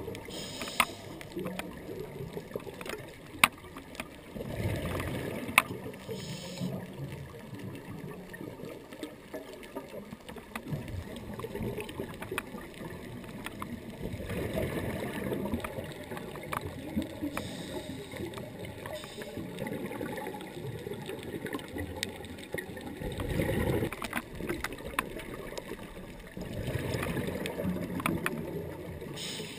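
Underwater sound of a scuba diver's breathing: bursts of gurgling exhaled bubbles every several seconds over a low steady rumble, with a few sharp clicks in the first few seconds.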